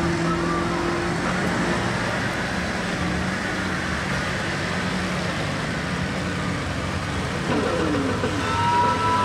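Diesel engines of lifted Ford mega mud trucks running steadily at low speed as they churn through mud, with a steady high whine joining near the end.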